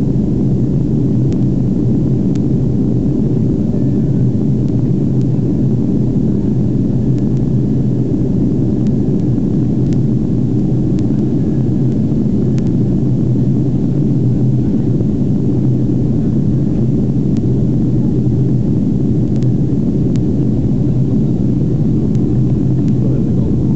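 Steady low rumble inside the cabin of a Boeing 767-300 climbing after takeoff: jet engine and airflow noise heard through the fuselage from a window seat over the wing.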